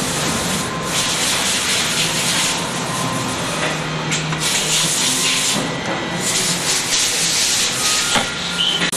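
CNC spring-forming machine running, feeding steel wire and coiling and bending it into hooked springs. It comes in three noisy passes of a second or so each, with a few sharp clicks.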